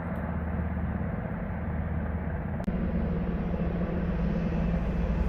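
Steady low drone of Black Hawk helicopter rotors and engines working nearby, with a faint click about two and a half seconds in, after which it gets slightly louder.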